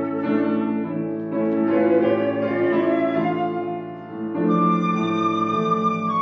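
Cocus-wood flute by Hammig playing long held notes over a Bösendorfer grand piano accompaniment. The music softens about four seconds in, then a louder phrase starts with a sustained higher flute note.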